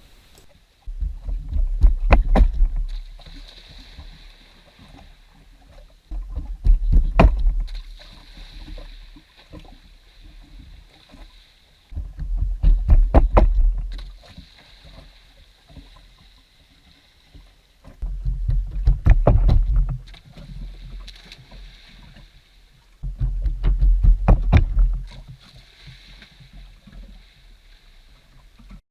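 Water splashing and sloshing in five loud bursts, each about two seconds long and about five to six seconds apart, with a deep rumble and sharp knocks in each burst.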